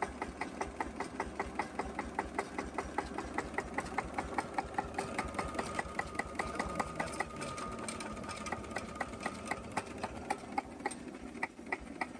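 Cunewalder single-cylinder hopper-cooled diesel engine idling very slowly, at just under 400 rpm, with an even rhythm of sharp ticks at about four a second. A faint steady high tone joins for a few seconds in the middle.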